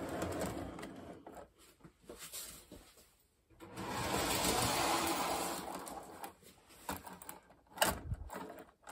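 Toy tank cars being pushed along tinplate track and coupled by hand: a rolling, rattling noise of the wheels on the rails, then sharp clicks near the end as the next car is set down on the track.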